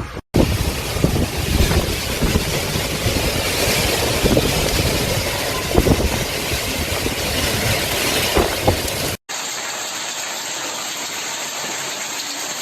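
Torrential rain pouring down hard, a dense rumbling rush thick with spattering hits. About nine seconds in it cuts to a steadier, thinner hiss of rain.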